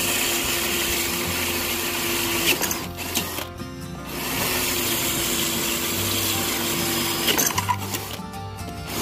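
Dekton D21 cordless drill with a 10 mm bit drilling into a solid clay brick in plain drill mode without hammer action, the motor running steadily under load. It stops briefly twice, about three and a half seconds in and again near the end.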